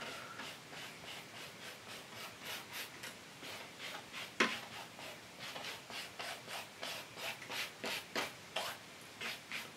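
Bristle brush scrubbing oil paint onto a stretched canvas in short, repeated strokes, about two or three a second, with one louder stroke about four seconds in.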